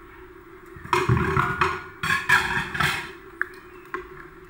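A ladle stirring corn pieces in a pot of broth: a loud, noisy stretch of about two seconds in two parts, then a couple of short sharp knocks of the ladle against the pot.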